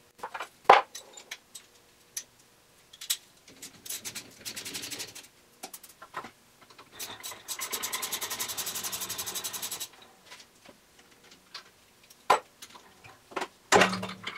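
Socket ratchet clicking fast and evenly as the 8 mm hex bolts holding the lathe turret are turned: a short run about four seconds in, then a longer steady run of about two and a half seconds. Scattered metal clinks come between the runs, and there is a loud knock near the end.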